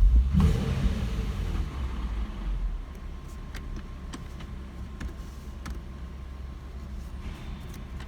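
Infiniti G37's 3.7-litre V6 running in park with a metallic exhaust rattle. The rattle flares up loudly and suddenly for about three seconds with a low rumble, then settles to scattered light ticks, and another sharp rattle comes near the end. It is triggered by vibration at low RPM and comes from faulty catalytic converters, a known G37 problem.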